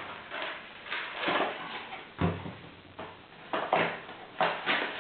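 A small cardboard box being opened by hand, its flaps rustling and scraping as a plastic-clamshell-packed SSD is slid out, with a dull knock about two seconds in as something is set down on cardboard.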